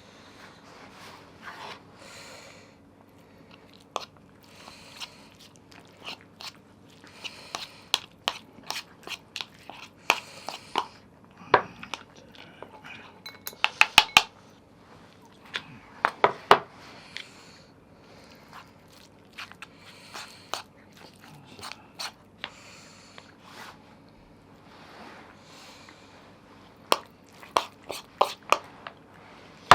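A cat crunching dry food, with scattered sharp clinks of dishes and utensils, some in quick runs.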